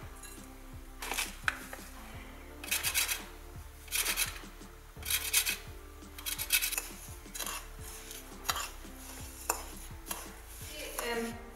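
Kitchen handling over a ceramic plate: a lemon rubbed on a flat metal grater, and a metal spoon scraping and stirring breadcrumbs on the plate, in short strokes about one a second.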